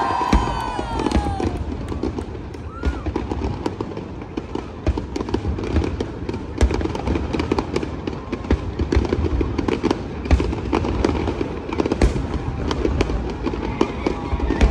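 Aerial fireworks display bursting in a dense, irregular string of cracks and bangs over a continuous rumble, with a few falling whistling tones near the start.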